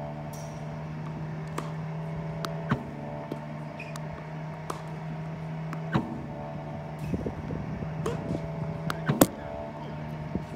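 Slinger Bag tennis ball machine running with a steady motor hum, broken by several sharp knocks of tennis balls being launched and struck by a racket.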